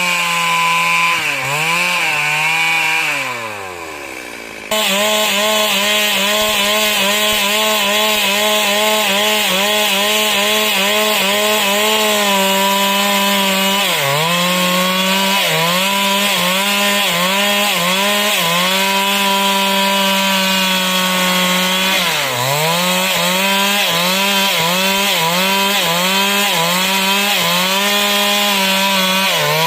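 Stihl MS 382 two-stroke chainsaw running at high revs and cutting wood, its engine note dipping and recovering again and again as the chain takes load. About three seconds in the revs fall away, then the saw comes back abruptly at full revs.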